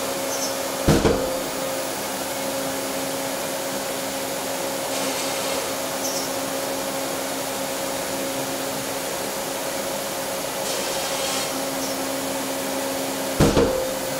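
Router spindle of a Yeti Smartbench CNC running at a steady high pitch with dust extraction, boring shelf pin holes in plywood. Two brief, loud bursts stand out, about a second in and near the end.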